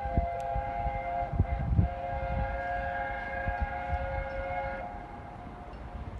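A train's air horn sounding one long, steady chord of several notes, which cuts off a little under five seconds in, over the low rumble of the train.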